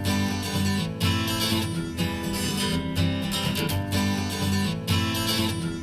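Recorded music: the instrumental opening of an acoustic song, with strummed acoustic guitar over bass and a steady beat, starting abruptly.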